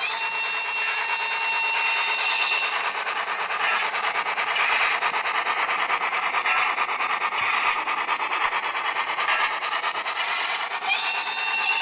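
HO-scale model train running on the layout: a steady, rapid clatter and rubbing. A high, steady whine-like tone is held for the first few seconds and comes back near the end.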